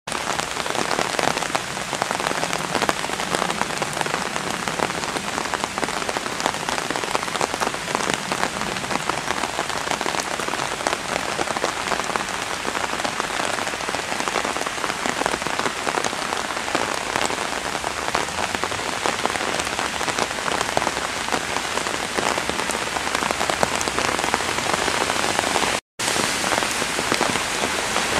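Heavy rain falling steadily onto a flooded street, drops splashing into the standing water and onto wet paving. The sound drops out for an instant near the end.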